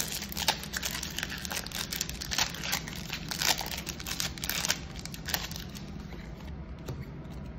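Foil wrapper of a Magic: The Gathering draft booster pack crinkling and tearing as it is ripped open by hand; the crackling dies down about five and a half seconds in.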